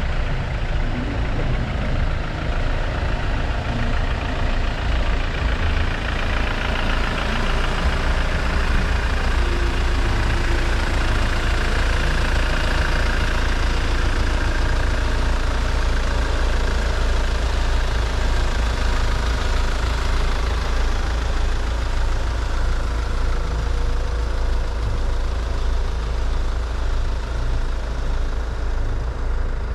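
Van engines idling steadily, a continuous low rumble.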